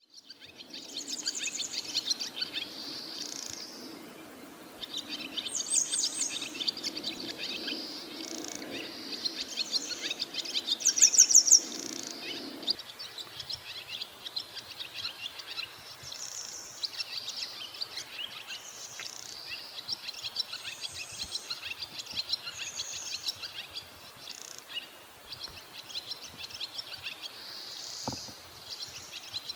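Barn swallows twittering: a run of fast, chattering warbles and trills, the loudest a buzzy rattle near the middle. A low steady hum sits under the first half and stops partway through.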